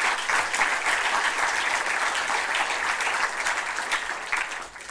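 Audience applauding: dense clapping that dies away near the end.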